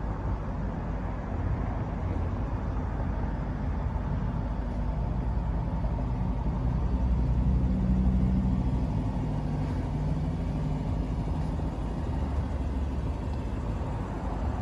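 Lexus LC 500's 5.0-litre V8 idling steadily, with a low rumble that grows louder for a couple of seconds about seven seconds in.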